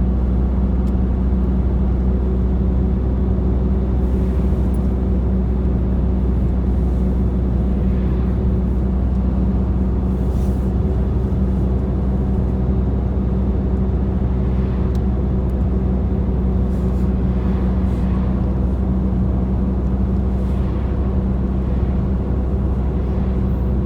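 Steady low drone of a running engine, unchanging throughout.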